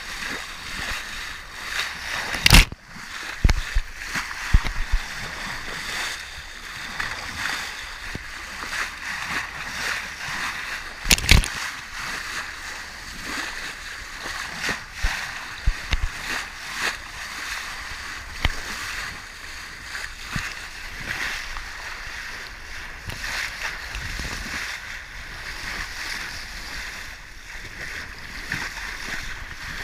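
Water rushing and splashing along a sailboat's hull under way at sea, a steady hiss, with two loud sharp knocks, one near the start and one about eleven seconds in.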